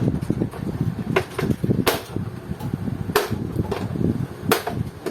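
Plastic snap clips of an LCD monitor's back cover clicking as the case is pried open: about four sharp clicks, spaced a second or so apart, over a low steady rumble.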